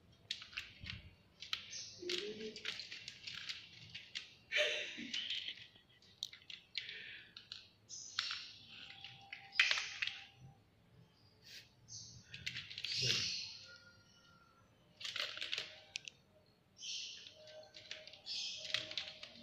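Cats' claws scratching and scraping at a plastic mesh laundry basket as two cats wrestle through its side, in irregular short rustles with sharp clicks.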